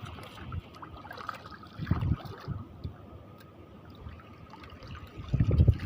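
Shallow seawater splashing and trickling, with louder splashes about two seconds in and again near the end.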